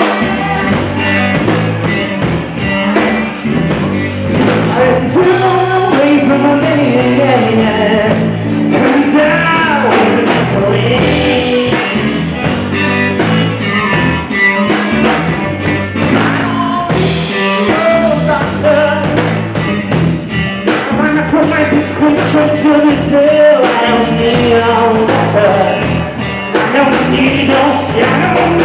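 Live blues-rock band playing: electric guitars, electric bass and a drum kit, with a steady beat and cymbals keeping time.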